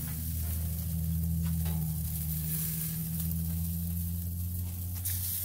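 Jerk chicken sizzling on a gas grill, a hiss over a steady low hum, with a few short clicks as a piece is lifted with a utensil.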